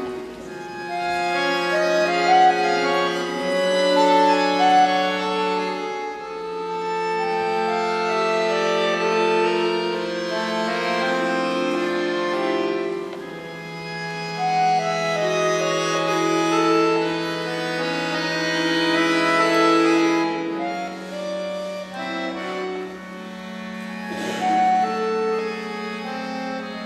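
Chromatic button accordion played solo: a slow melody of held notes over long sustained bass tones that change every few seconds.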